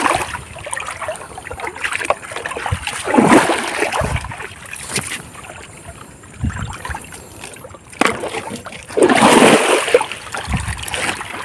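Shallow river water splashing and sloshing as a hand fishing net is swept through it and lifted out, with a louder surge a few seconds in and a longer one near the end. A sharp knock comes just before the last surge.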